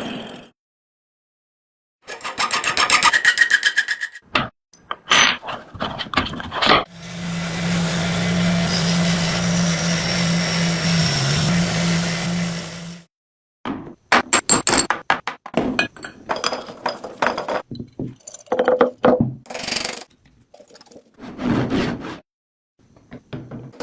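A run of hand-tool and workshop sounds: quick rhythmic scraping strokes, a few knocks, a small motor running steadily for about six seconds near the middle, then a string of sharp metal clicks and knocks.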